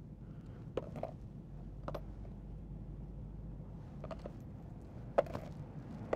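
Low steady rumble of ambience with a handful of small sharp clicks and knocks scattered through it, the loudest about five seconds in.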